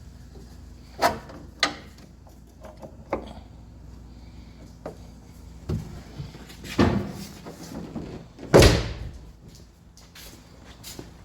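A series of about six knocks and clunks, as of parts and tools being handled. The loudest is a heavy thud about eight and a half seconds in.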